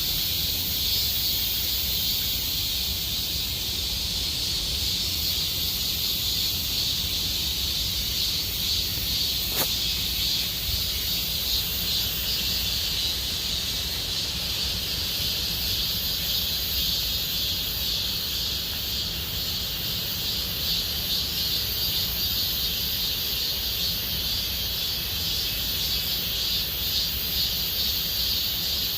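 Cicadas singing in a steady chorus, a continuous high buzzing that holds without pause; a single sharp click about ten seconds in.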